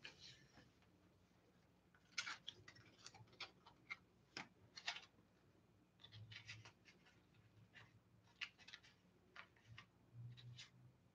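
Faint, intermittent rustling and scratching of hair and a fabric crown headband being pushed on and adjusted by hand, over quiet room tone.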